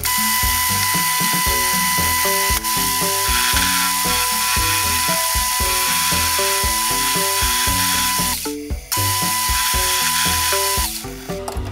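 A power tool running steadily with a high whine, stopping for about half a second around eight seconds in and then running again until near the end, over background music.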